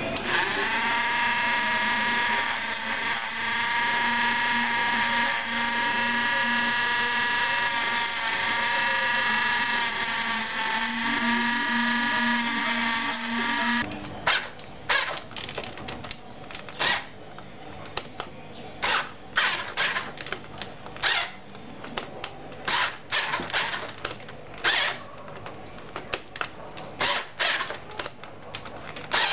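Cordless rotary tool with a pink grinding stone runs with a steady high whine as it grinds flutes into a steel screw to make a homemade tap. It cuts off suddenly about halfway through. It is followed by a cordless drill giving a series of short sharp clicks and bursts, irregularly spaced, as it works the rod held in the vise.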